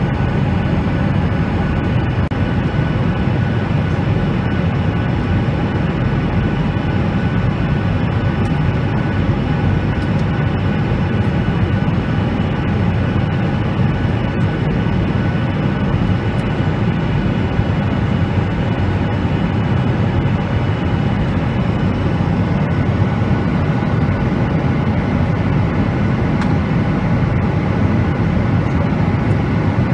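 Jet airliner cabin noise in flight: the steady rush of the engines and airflow heard from a window seat beside the wing, with a faint steady high tone over it.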